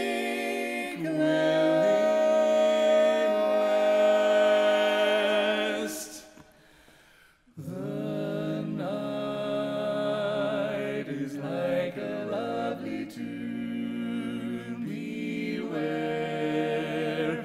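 Mixed barbershop quartet singing a cappella in four-part close harmony. They hold a long chord with vibrato that dies away about six seconds in. After a pause of about a second and a half, they come back in more quietly with a new phrase.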